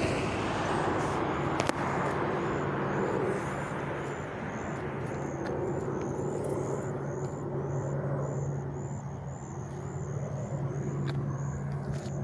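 Road traffic passing with a steady engine hum, loudest in the first few seconds and easing after. A small high chirp repeats about twice a second.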